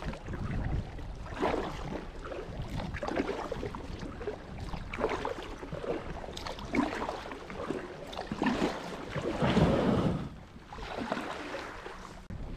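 Kayak paddle strokes swishing and splashing in the water, a surge every second or two, over a low wind rumble on the microphone.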